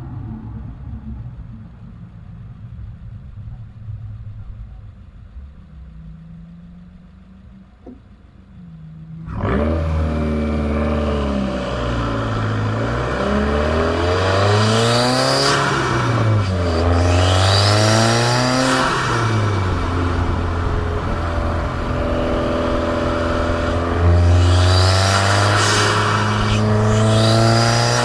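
Subaru WRX turbocharged flat-four engine running quietly at low load for the first nine seconds, then revving hard under acceleration, its pitch climbing and dropping repeatedly as it pulls through the gears. On several of the pulls a high turbo whistle rises with the revs.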